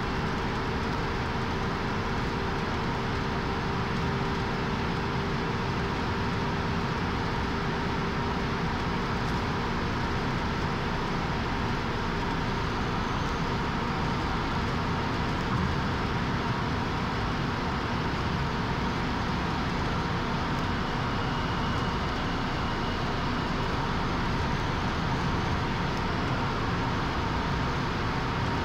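Cabin noise of a 1997 VW Passat B5 with the 1.9 TDI four-cylinder turbodiesel at high speed on a top-speed run: a steady mix of engine drone, wind and tyre noise with a few held tones.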